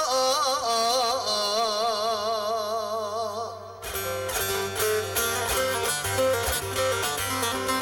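Live amplified folk music: a singer's long held note with a wavering melisma, ending about four seconds in. Bağlama (saz) plucking then carries on over a keyboard backing.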